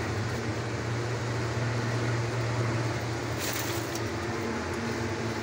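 A steady low machine hum, like a motor or fan, with a brief burst of hiss about three and a half seconds in.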